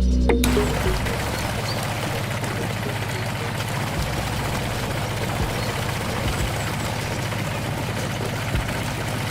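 A motor running steadily: a low hum under a dense, even hiss.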